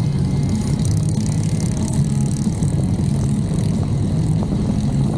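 Motorcycle engines running in a steady, loud low drone as the group ride rolls along.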